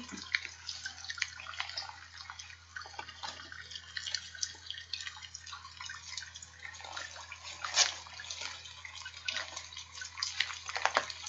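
Rain sound effect: a steady patter of falling rain with many small drips.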